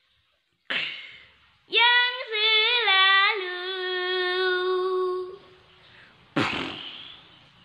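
A young boy singing one long, wavering held note of about three and a half seconds, unaccompanied, with a sharp breathy huff just before it and another near the end.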